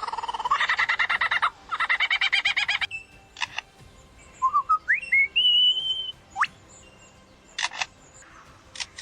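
Superb lyrebird singing a mimicry medley: two runs of fast rattling trills, then sharp clicks, a series of rising whistles ending in a held high note, a quick downward-sweeping note, and more clicks near the end.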